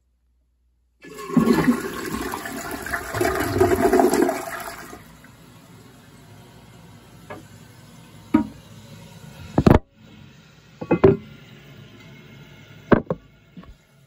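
American Standard Champion one-piece toilet flushing: a loud rush of water for about four seconds, then a quieter steady hiss as it refills. Several sharp knocks follow during the refill, the loudest near the middle.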